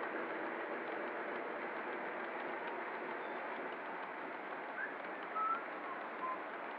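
O scale model freight train of refrigerator cars rolling along three-rail track, a steady rumble of wheels on rail. A few short high squeaks come near the end.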